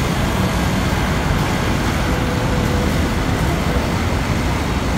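Steady city street traffic, a continuous wash of car and motorcycle engines and tyre noise from the road below.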